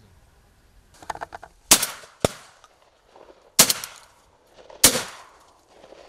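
Three shotgun shots, the first two about two seconds apart and the third a little over a second later, each trailing off with an echo. A short, sharp crack comes just after the first shot, and a quick run of lighter clicks comes just before it.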